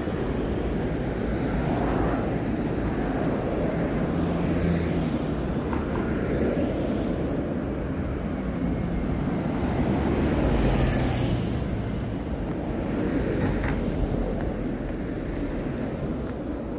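Road traffic on a busy city street: a steady wash of cars passing, swelling as vehicles go by, loudest about ten seconds in.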